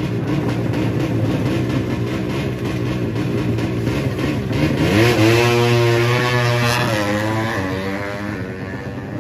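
Drag-racing motorcycle engine revving hard: the pitch climbs sharply about four and a half seconds in, holds high, rises once more around seven seconds and then falls away.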